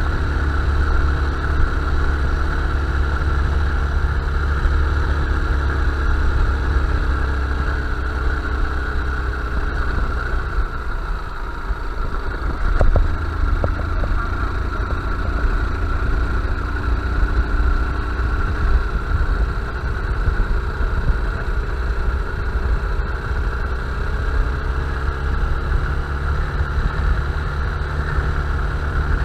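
Honda Bros 160 motorcycle's single-cylinder engine running steadily while riding. The engine note dips about ten seconds in, with a couple of short knocks a few seconds later, then it runs steadily again.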